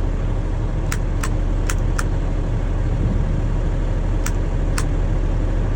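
International water truck's engine idling steadily. Several sharp clicks sound over it, four in a quick run between about one and two seconds in and two more a little after four seconds.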